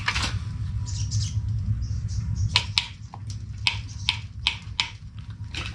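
Wire mesh being handled, with a run of sharp metallic clicks and rattles in the middle, over a low steady hum.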